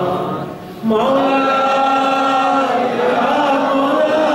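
A man chanting an Arabic supplication in long, drawn-out melodic phrases. His voice fades briefly for a breath just before a second in, then comes back in on a held note.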